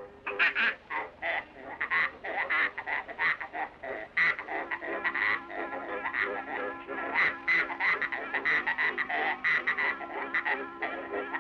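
Cartoon sound effect of a sow played like a squeezebox: a quick run of short squealing notes, three or four a second, picking out a tune. A low held note comes in underneath from about four seconds in.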